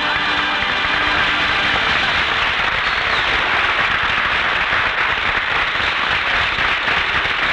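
Studio audience applauding steadily at the end of a song, heard on a 1940s radio broadcast recording.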